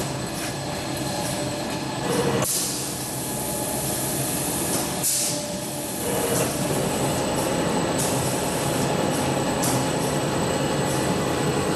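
TZ-DHX-N paper hand towel log saw cutting machine running: a steady mechanical whir, with short bursts of hiss about two and a half and five seconds in and fainter ones later.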